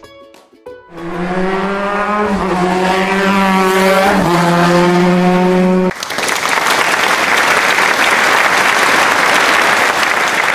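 Motorcycle engine running at a steady pitch with a couple of small shifts in speed for about five seconds, then it gives way to a loud patter of applause.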